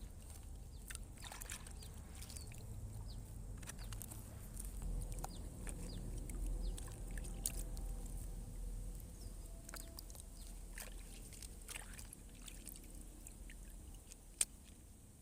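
Water splashing and sloshing, with scattered small splashes and clicks over a steady low rumble, and one sharp knock near the end.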